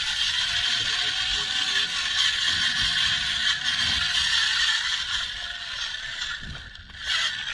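Electric drive motor and gear train of a battery-powered model tractor running, a steady mechanical whirring and grinding that eases off briefly about six and a half seconds in.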